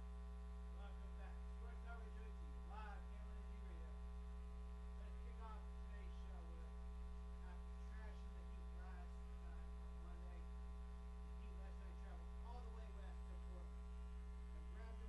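Steady electrical mains hum with its overtones, with faint, indistinct talking underneath.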